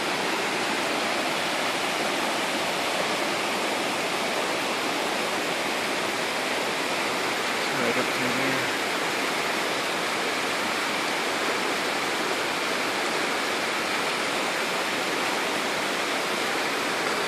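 Waterfall: water falling and rushing steadily, an even hiss with no let-up.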